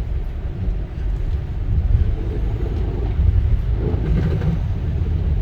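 Steady low rumble of a Subaru Crosstrek driving through snow on the road, heard from inside the cabin: tyre and road noise.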